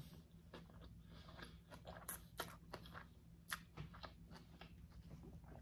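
A person chewing a mouthful of bunless burger close to the microphone: faint, irregular small clicks and soft crunches of the mouth.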